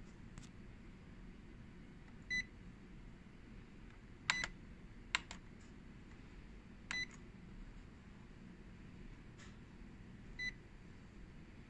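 Short electronic key beeps from a multifunction copier's control panel as its buttons and touchscreen are pressed: four separate beeps spread out over several seconds, with a sharp click near the middle.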